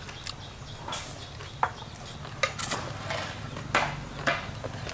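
Close-up eating sounds: chewing a mouthful of papaya salad, with chopsticks clicking against a metal bowl in irregular short clicks.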